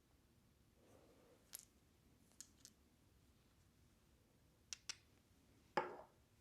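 A few light, sharp clicks of small hard objects handled on a tabletop, then one louder knock near the end as something is set down.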